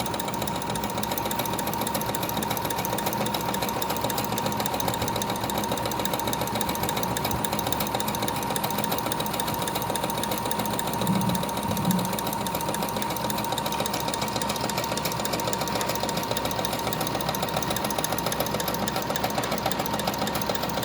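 Brother FS101 computerized sewing machine running steadily, stitching out a decorative line-pattern stitch: a fast, even needle rhythm over a steady motor whine. Two short low bumps come around the middle.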